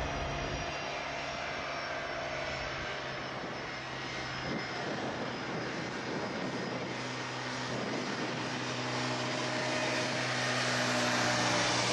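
Boeing 737-800's CFM56-7B turbofan engines at takeoff power: steady jet engine noise over a low hum, getting louder near the end as the airliner lifts off and climbs away.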